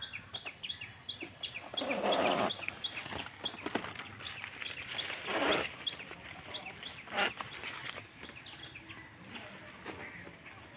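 Birds calling: a quick, repeated series of short high chirps, with two louder, harsher calls about two and five seconds in that fit chickens clucking.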